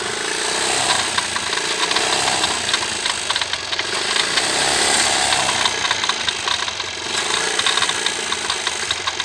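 1980 Honda C70's small single-cylinder four-stroke engine running in gear on a stand, with a rapid, irregular clattering and knocking from down in the crankcase. The owner takes it for something loose, like a bolt, rattling around in the crankcase or gearbox.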